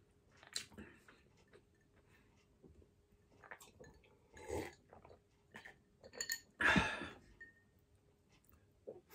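Eating and drinking at close range: small clicks and mouth noises, swallows of a drink from a glass a little before halfway, and a louder half-second sound from the mouth about two-thirds of the way through.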